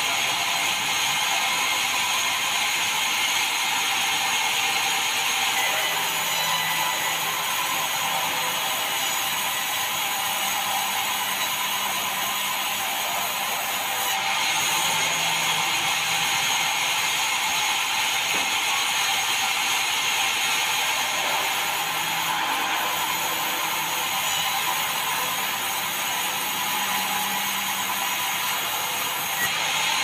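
Large band saw running and cutting through red meranti timber as it is fed past the blade: a steady, hissy machine noise that barely changes in level.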